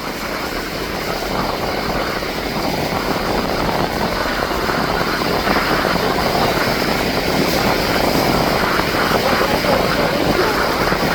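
Canadair CL-415 amphibious firefighting plane's twin turboprop engines droning, growing gradually louder.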